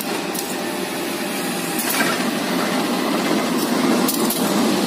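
CC 201 diesel-electric locomotive's engine running with a steady mechanical drone as the train creeps slowly past, growing a little louder as it comes close.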